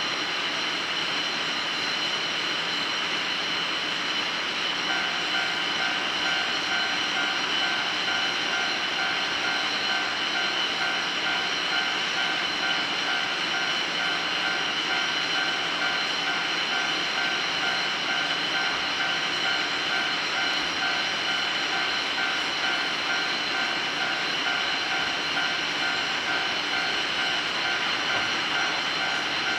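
Japanese railway level-crossing warning bell starts about five seconds in and keeps ringing in a fast, even, repeating tone: the crossing is signalling that the cable car is coming. Under it runs a steady high hiss.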